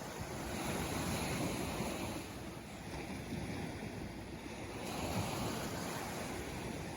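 Sea waves washing onto the shore: a steady surf hiss that swells about a second in and again around five seconds.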